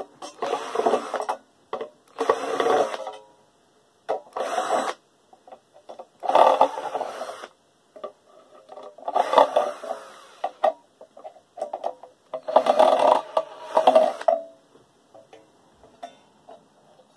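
About six separate bursts of rattling, scraping mechanical noise, each roughly a second long with pauses between, from metal parts of a desk fan being worked apart.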